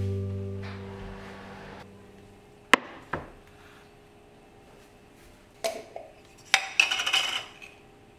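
A guitar chord fades away. Then come sharp kitchen clinks and knocks: twice near the middle, and a short clatter of several near the end, as a metal baking tray of granola and a glass jar of raisins are handled on the counter.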